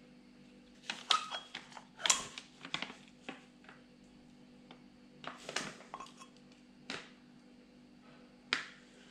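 Metal parts of a Peugeot/Citroën HDI 136 starter motor clicking and clinking as it is taken apart by hand, the armature being drawn out of its housing. The clicks come in quick clusters, about a second in, two to three seconds in and five to six seconds in, with one sharp click near the end.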